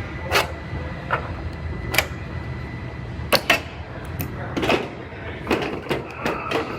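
Irregular sharp taps and clicks of hand work on sheet-metal body panels, about a dozen, over a steady low hum.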